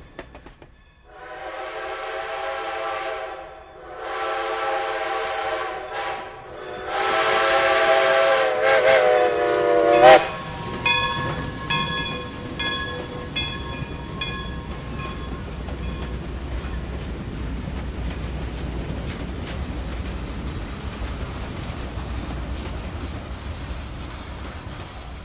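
Chime steam whistle of 2-8-0 steam locomotive No. 40 sounding the grade-crossing signal: long, long, short, long, several tones together. Then a bell rings repeatedly for a few seconds as the locomotive and its coaches roll past with a steady rumble and wheel clatter.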